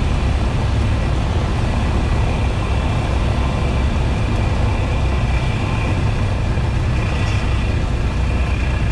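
Cessna 172S's four-cylinder piston engine and propeller running steadily, heard from inside the cabin as a constant low noise with no change in pitch or power.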